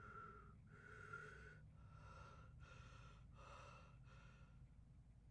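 Faint, quick gasping breaths through the open mouth, one after another: the build-up to a sneeze.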